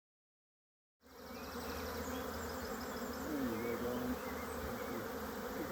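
Honeybees buzzing around an open hive in a steady hum that starts about a second in, after a second of silence.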